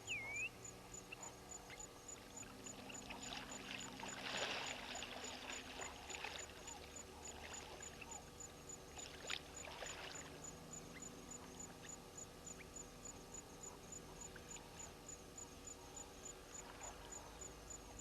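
Water sloshing and splashing as a hippo moves in the dam, swelling about four seconds in and again near ten seconds, with a short bird chirp at the start and a steady high ticking throughout.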